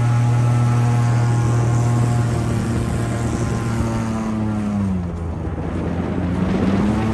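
Airboat's engine and air propeller running hard with a steady, loud drone. Its pitch sags about five seconds in as the throttle eases, then rises again near the end.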